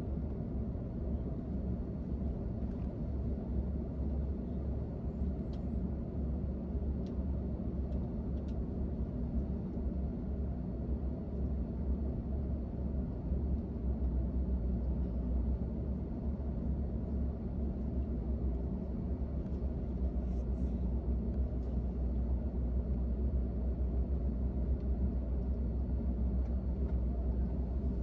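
Steady low rumble inside an Airbus A380-800's cabin, with a few faint ticks.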